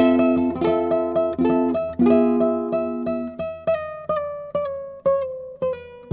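Background music: a plucked-string instrument, ukulele or guitar, playing chords and a melody at a steady pulse of about two notes a second, the melody stepping down near the end.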